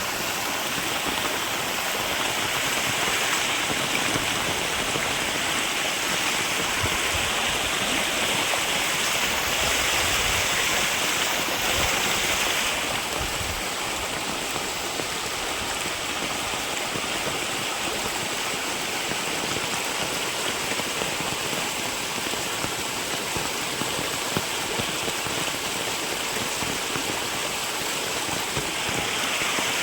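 Steady rush of water from rain and flowing rainwater, a dense even hiss with no pauses.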